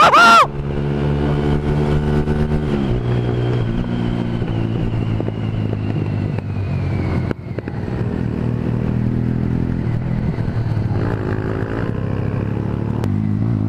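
A Honda CBR125R's small single-cylinder engine running steadily at road speed. About seven seconds in, the engine note breaks briefly at a gear change, then carries on steadily.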